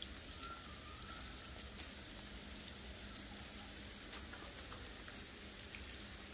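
Fine ice pellets (sleet) falling steadily: a faint, even hiss with scattered light ticks as the small grains land on the ground and the parked cars.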